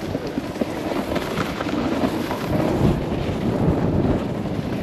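Rushing wind rumble on an action camera's microphone, with a snowboard's edges scraping over packed, groomed snow during a downhill run.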